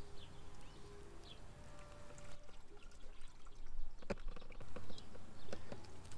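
Distilled rinse water pouring and trickling out of a plastic coolant reservoir into a drain pan, with a light knock about four seconds in.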